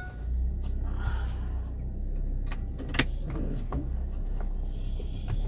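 Car driving, heard from inside the cabin as a steady low rumble, with one sharp knock about three seconds in.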